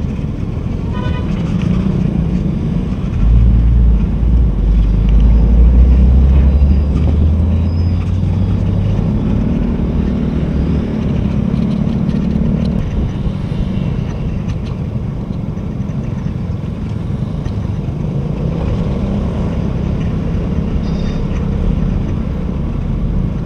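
Riding a Yamaha Taurus motorbike in city traffic: the bike's engine and road noise run steadily, with the traffic around it. About three seconds in, a deep rumble swells and holds for about five seconds, the loudest stretch.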